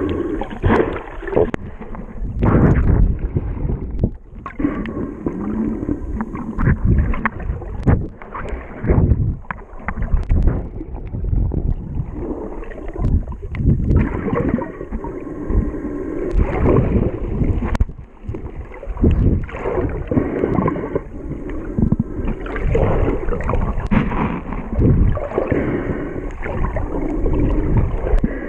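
Muffled, irregular sloshing and gurgling of water heard through a camera's waterproof housing held underwater, swelling and dipping with frequent short knocks as the housing moves.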